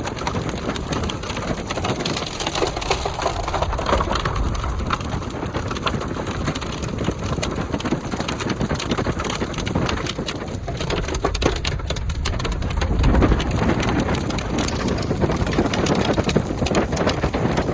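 Heavy rain pelting a moving vehicle's roof and windshield, a dense patter of many small hits over steady road rumble.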